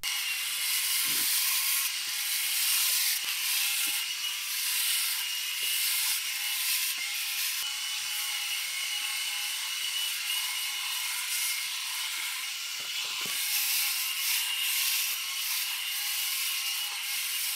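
Homeasy LK2800 rotary electric head shaver running against the scalp, its rotary heads cutting through short stubble. It gives a steady high whine over a scratchy rasping with scattered small clicks. The sound is sped up along with the fast-forwarded footage.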